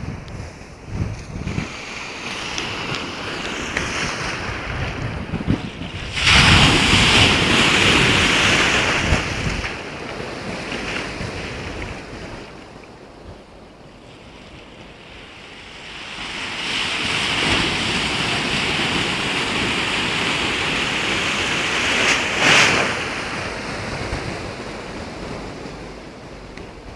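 Sea waves breaking and washing on the shore, with wind buffeting the microphone. The surf surges loudly about six seconds in and again for a longer stretch from about sixteen seconds, with a sharp crash near the end.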